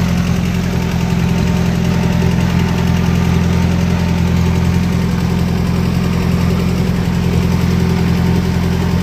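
1940 Allis-Chalmers B tractor's four-cylinder engine running steadily at a low, even speed as the tractor is driven, heard from the driver's seat.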